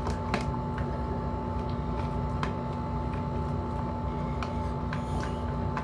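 A steady low hum with a constant faint tone, and scattered small clicks and taps, about one or two a second.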